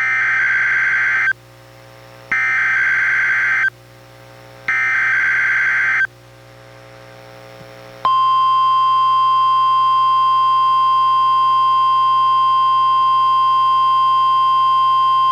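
NOAA Weather Radio test signal: three short bursts of SAME digital header data, each a harsh warbling screech about a second and a half long with about a second between them. About eight seconds in, the steady single-pitch 1050 Hz warning alarm tone comes on and holds.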